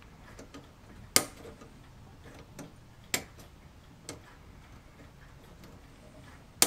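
Sprue nippers snipping plastic model parts off their sprue: a few sharp clicks every second or two, the first, about a second in, the loudest.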